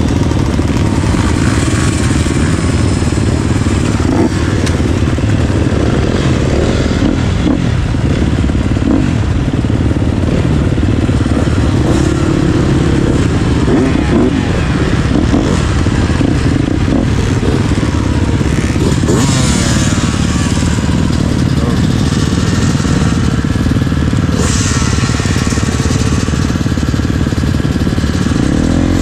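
Dirt bike engine running loud and close as the bike is ridden round a motocross track on a warm-up lap, with brief rushes of hiss twice in the second half.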